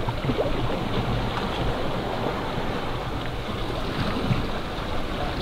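Wind buffeting the microphone over the steady wash of sea waves against the rocks.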